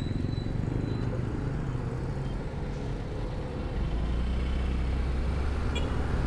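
Motor vehicle on the move: a steady low engine and road rumble, which grows stronger about four seconds in.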